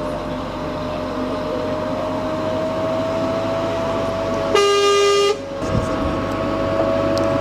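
Engine of a French Army VBCI eight-wheeled armoured vehicle running as it drives slowly, with a steady whine that creeps up slowly in pitch. About four and a half seconds in, a horn sounds once for under a second.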